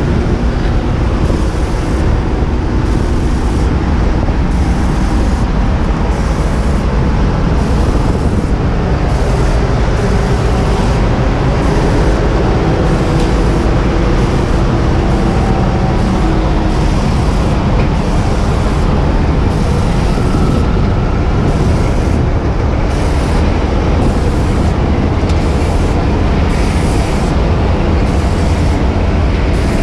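Aerial ladder fire truck's engine running steadily, a constant low rumble heard from up on the ladder.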